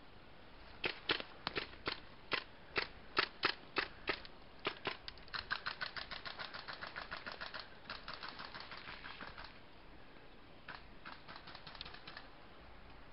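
Airsoft gunfire: single shots cracking out about two a second, then rapid strings of shots at about eight a second, then a few more single shots near the end.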